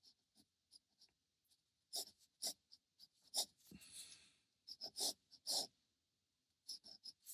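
Pen scratching on sketchbook paper in short, irregular strokes, with one longer stroke about four seconds in.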